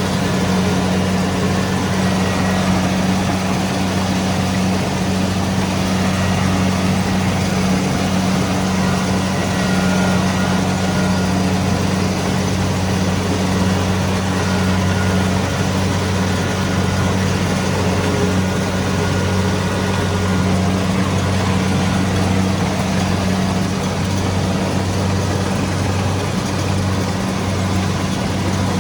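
Kubota DC-70 Pro combine harvester running steadily, a loud constant engine hum over an even mechanical noise.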